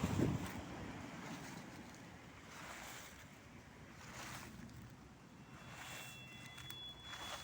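Dry fallen autumn leaves rustling in a few swishes, with a soft thud at the start.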